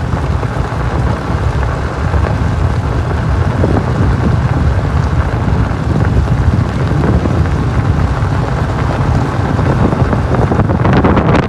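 Wind buffeting the microphone over the low rumble of a Jeep LJ driving a gravel road, with a burst of crackling near the end.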